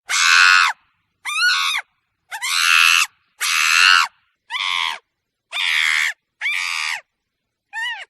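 A monkey giving a series of eight short, harsh screeching calls, about one a second, some gliding up or down in pitch, with dead silence between them.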